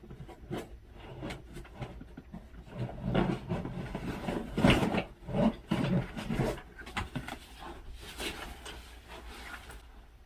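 A cardboard box and its packaging being handled and opened: irregular rustling, scraping and knocks, busiest in the middle.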